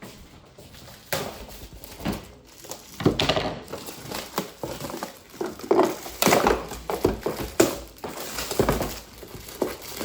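Plastic packaging crinkling and rustling as it is handled, in irregular crackles with a few heavier knocks.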